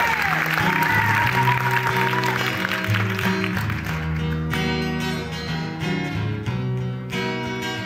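Acoustic guitar strummed, chords ringing one after another. Applause and a long whistle from the audience carry over the first two or three seconds and fade away.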